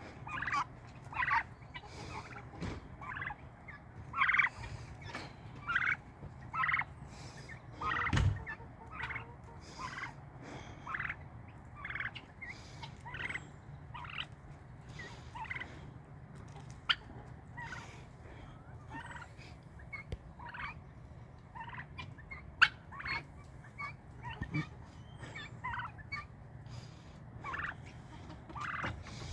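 A backyard flock of turkeys and guinea fowl calling: a string of short, repeated calls, roughly one every second, with a few louder ones.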